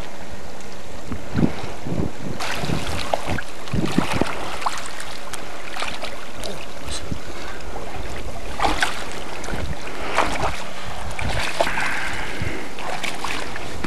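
Wind buffeting the microphone over shallow river water, with repeated short splashes and sloshes as a large wels catfish is grabbed by hand and hauled out of the water.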